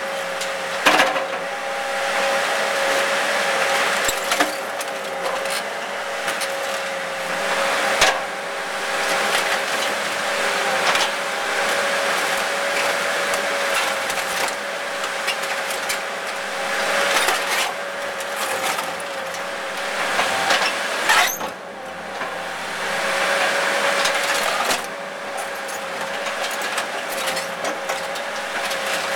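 Excavator running with a steady whine as it crushes and tears into an old Mercedes 300D's body, the metal crunching throughout with sharp cracks now and then, the loudest about a second in, around eight seconds in and about two-thirds of the way through.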